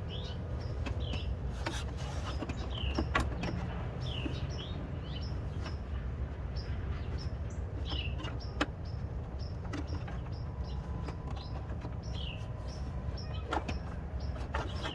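Scattered clicks and knocks of parts being unfastened and handled in a car's engine bay, over a steady low rumble, with small birds chirping again and again.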